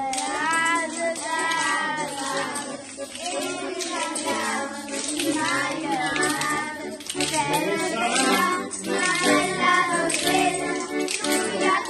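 A group of children singing a traditional maitunata song together in dialect, accompanied by wooden frames with metal jingle discs being shaken.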